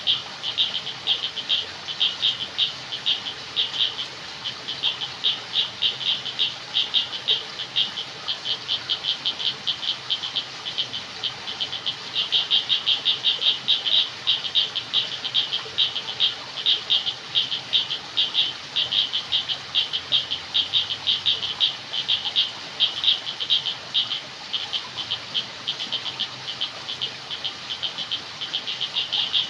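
Night chorus of frogs calling in rapid, evenly repeated high pulses, several a second, going on without a break.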